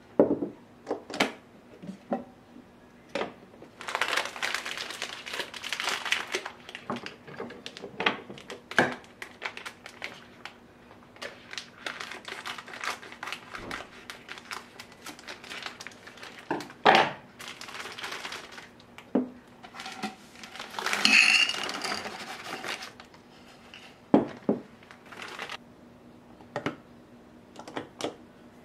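Hands handling a DULTON glass storage canister with a stainless steel push-button lid: scattered sharp clicks and knocks of metal lid and glass. Two spells of plastic packaging crinkling, each a couple of seconds, come about four seconds in and again about three quarters of the way through.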